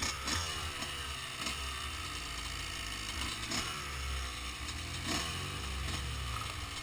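Off-road vehicle engine revving up and down over and over while riding across sand, with low wind rumble on the microphone and occasional knocks.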